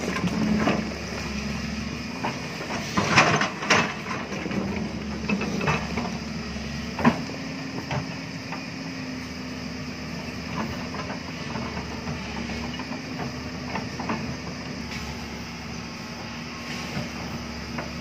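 JCB tracked excavator's diesel engine running steadily, with knocks and rattles of the steel bucket digging through rock and stones over the first several seconds, loudest about three seconds in. After that the engine runs on with only a few light knocks while the bucket is lifted.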